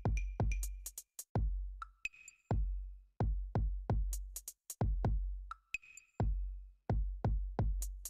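Background electronic music with a drum-machine beat: deep kick-drum hits that drop in pitch, sharp high clicks, and short high synth notes.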